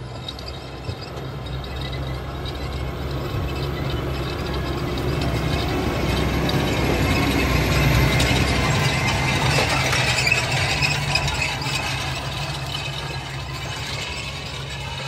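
Tractor-drawn Landstal BTH 600 cultivator working ploughed soil: a metallic rattle from its tines and crumbler rollers over the steady hum of the tractor engine. It grows loudest about halfway through, then eases off.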